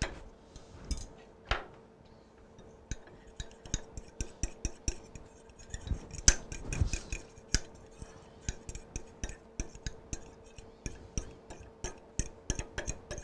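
Spoon stirring flour into beef broth in a small ceramic bowl to make a thickening slurry: light clicks of the spoon against the bowl, sparse at first, then several a second from about three seconds in.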